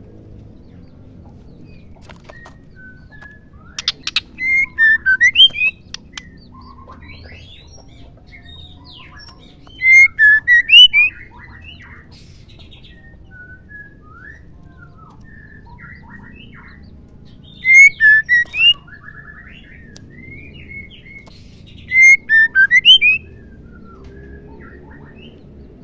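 Female white-rumped shama calling: four loud bursts of quick, sharp whistled notes several seconds apart, each lasting about a second, with softer chirps in between. The first burst opens with a short dry rattle.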